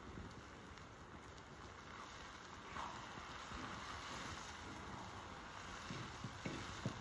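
Shredded pumpkin frying in a steel wok over a wood fire: a steady low sizzle, with a wooden spatula stirring and knocking against the pan a few times near the end.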